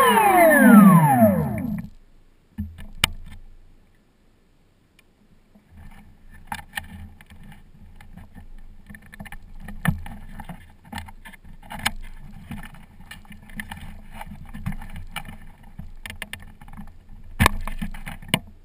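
An RC airplane's 800kv electric motor and propeller winding down: a whine of several pitches falling steadily until it stops about two seconds in. After that there are faint rustles with scattered small ticks and knocks.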